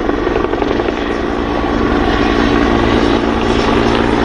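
Helicopter running steadily: a low, even rotor throb under a droning engine hum.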